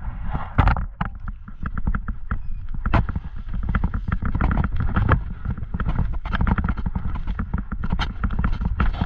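Footsteps on dirt and gravel, a fast irregular run of crunches and knocks picked up close by a body-worn camera, with rubbing and bumping of the camera against clothing.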